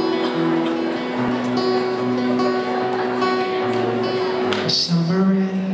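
Acoustic guitar strumming the opening chords of a pop song, played live. A voice comes in over it near the end.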